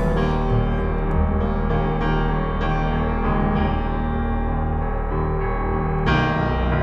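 Background piano music: slow sustained chords with a new chord struck about six seconds in.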